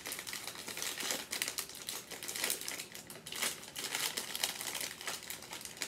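Plastic snack bag crinkling in quick, irregular crackles as it is pulled open and handled.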